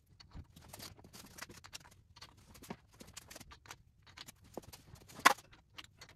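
Light metallic clicks and clinks of aluminium roller rockers being set one by one onto the rocker studs of a big-block Chevy cylinder head, with one sharper click about five seconds in.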